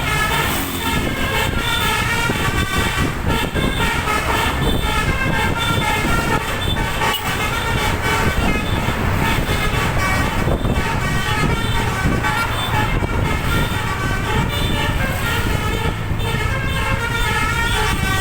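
A bus's twelve-trumpet 'telolet' air horn playing a tune of short, changing notes over and over, over the steady rumble of engine and road noise.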